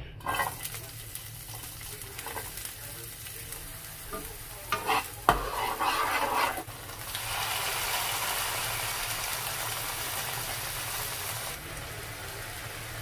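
Chopped green onions sizzling in hot oil in a frying pan, stirred with a spatula, with a few sharp knocks and scrapes against the pan about five seconds in. About halfway through the sizzling gets louder and fuller as diced raw chicken goes into the oil, then eases off slightly near the end.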